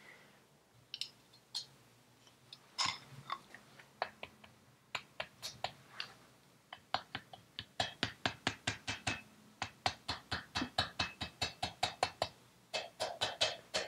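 A few scattered metal clicks, then from about halfway a quick, even run of light hammer taps, about four a second. The taps are driving a Vespa PX piston, its tight rings squeezed in, down into the cast-iron cylinder barrel.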